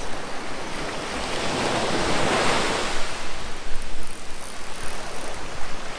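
Ocean surf breaking and washing up the sand, swelling about two seconds in, with wind buffeting the microphone.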